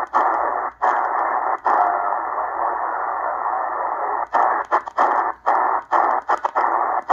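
Eton Grundig Satellit Executive shortwave receiver in lower sideband playing narrow hiss and static through its speaker while being tuned. The audio cuts out briefly with each tuning step: twice in the first couple of seconds, then a steadier stretch of hiss, then a quick run of repeated cut-outs from about four seconds in as the tuning speeds up.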